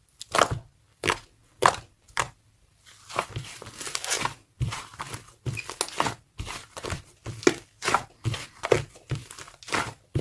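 Slime clay being squished and pressed by hand, giving sticky crackling squelches: four separate squishes, then from about three seconds in a quicker, near-continuous run of them.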